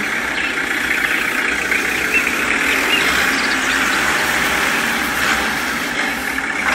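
Small electric motor and gearbox of a homemade toy tractor whirring steadily under load as its wheels churn in wet mud, the tractor stuck and barely moving.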